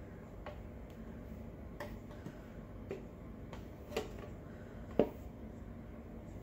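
Scattered light knocks and taps as a plastic mixing bowl is handled and tipped over a stainless steel stand-mixer bowl, about five in all, the loudest about five seconds in.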